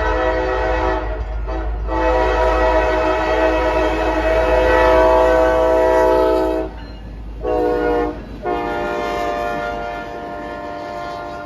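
CSX SD50 diesel locomotive's multi-chime air horn sounding a series of blasts: a long one, a short one, then a long one that fades, the pattern blown for a grade crossing. Beneath it runs the low rumble of the passing train.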